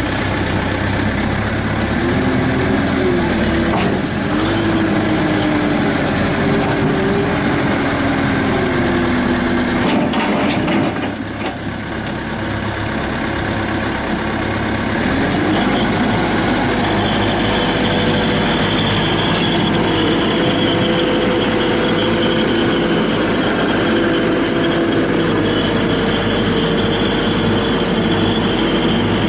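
1995 Caterpillar 436B backhoe loader's diesel engine running, its note wavering up and down in the first ten seconds, easing off around eleven seconds, then picking up again about fifteen seconds in and running steadily with a faint high whine on top.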